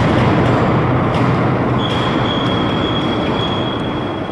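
Hydraulic CNC press brake running: a loud steady mechanical rush, joined about two seconds in by a high steady whine.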